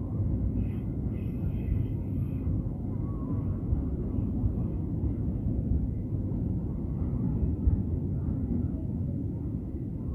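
Freight train carrying concrete sleepers rolling past: a steady low rumble of wagon wheels on the rails, easing slightly near the end as the last wagon clears.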